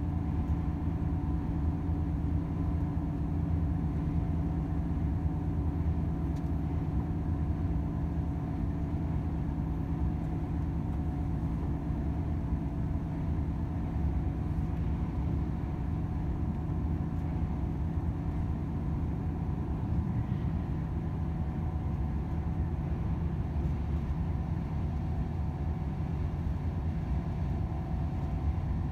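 Volvo FH 500 truck's 13-litre six-cylinder diesel running steadily under way, with a constant low drone of engine and road noise and faint steady higher tones over it.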